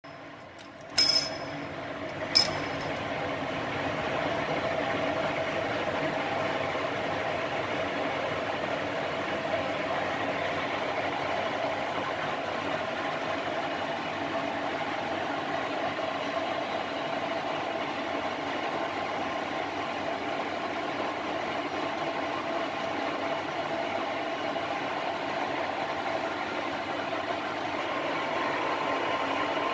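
DMTG CDS 6250 B centre lathe: two sharp clunks about one and two and a half seconds in as its control lever is worked, then the machine runs with a steady hum.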